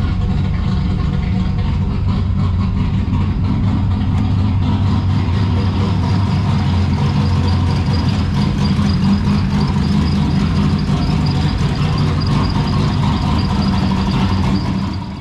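Turbocharged Holden Ecotec V6 engine idling steadily, its idle sound shaped by the camshaft.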